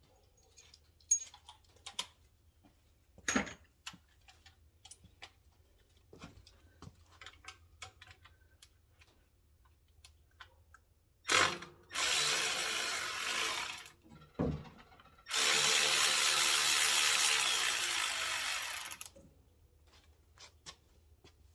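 A handheld power tool running in two bursts, the first about two and a half seconds and the second about four, with a brief blip between them. Before them come scattered clinks and knocks of tools and parts being handled.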